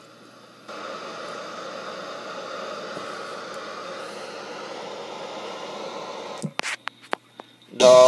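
Uniden PC76XL CB radio giving a steady receiver hiss of static, switching on sharply under a second in. Near the end it breaks into a few short clicks, and a loud steady tone starts just before the end.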